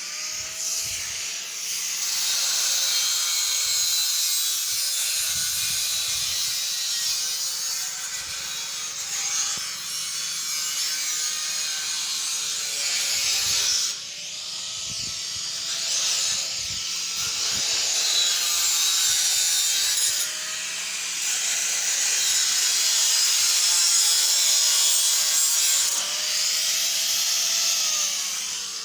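Angle grinder grinding metal, its motor note dipping and recovering as it is pressed into the work.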